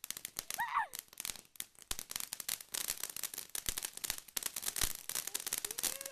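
Ground fountain firework spraying sparks, with a dense, rapid crackle of popping stars.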